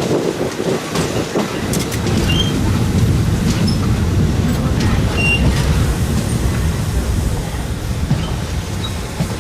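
Thai ordinary train running, heard from an open window of a third-class carriage: a steady heavy rumble of wheels on rail with rail-joint clicks and a few brief high wheel squeaks.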